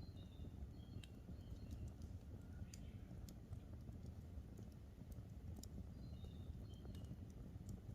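Campfire crackling, with scattered sharp pops over a low steady rumble. A small bird sings a short phrase of high chirps at the start and again near the end.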